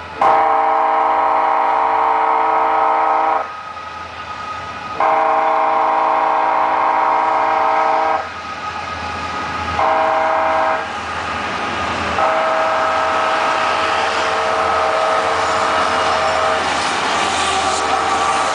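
Kansas City Southern freight locomotive's air horn sounding the grade-crossing signal as the train approaches a road crossing: two long blasts, a short one and a final long one, each a chord of several steady notes. Near the end the horn stops and the rumble of the train rolling through the crossing builds.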